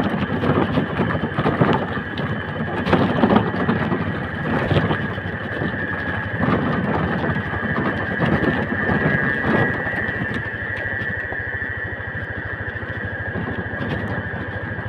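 Motorcycle engine running steadily while riding, with a steady high tone over it and a few short knocks.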